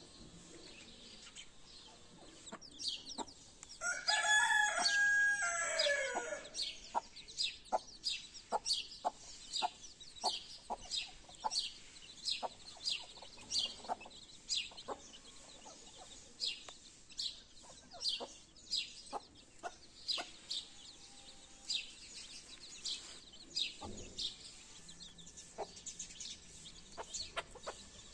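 Chicks peeping over and over in short, high, thin notes, with a hen clucking among them. About four seconds in, a rooster crows once, a call of about two and a half seconds that drops in pitch at the end and is the loudest sound.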